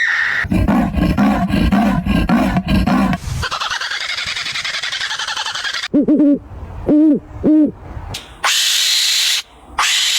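A sequence of animal calls: a low pulsing call, then a raspy call, then three short hoots, then a long hiss near the end.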